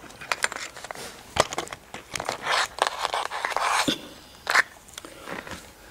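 Close rustling and scraping noises, fullest in the middle, with a few sharp clicks; the loudest click comes near the end.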